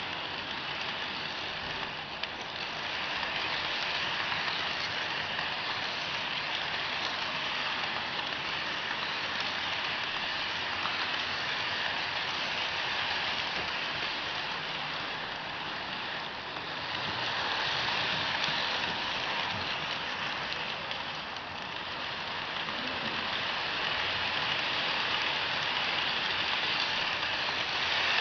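Rivarossi model Nickel Plate Road 765 Berkshire locomotive and a long string of model freight cars rolling on track: a steady rattling hiss of wheels on rail. It swells and fades as the train goes round the loop, loudest around 17 seconds in and again near the end.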